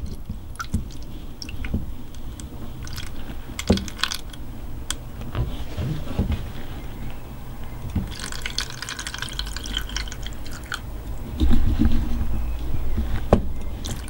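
Apple cider vinegar poured in a steady trickle from a glass bottle into the plastic fabric-softener compartment of a washing machine's dispenser drawer, with a few light clicks along the way; the pour grows louder near the end.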